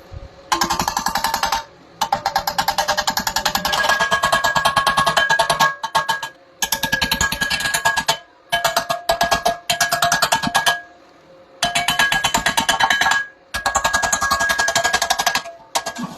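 Electric welding arc buzzing and crackling in repeated runs of one to four seconds. Each run starts and stops abruptly, about eight times, with short silences between them.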